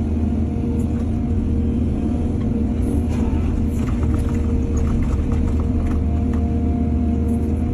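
Heavy diesel earthmoving machinery running steadily with a low rumble, with a few faint clicks and clatter in the middle.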